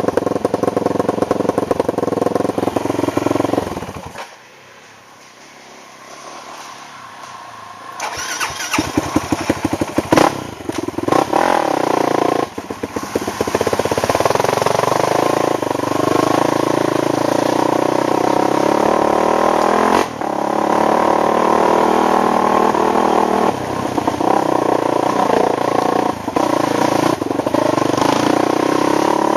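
ATV engine running, then going quiet about four seconds in. About eight seconds in it is started again with a few sharp clicks and revs, then runs steadily.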